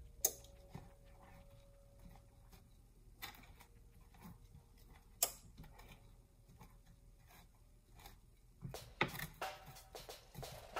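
Metal kitchen tongs with silicone tips clicking and tapping against a baking sheet as breaded chicken nuggets are picked up and turned over: a few separate sharp clicks, then a quicker run of taps near the end, over a faint steady hum.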